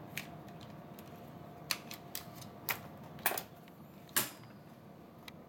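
Scattered clicks and knocks of a Lonex L4 (M4A1) airsoft electric gun's plastic and metal parts being handled during disassembly, about seven at uneven intervals, the loudest a little past three and four seconds in.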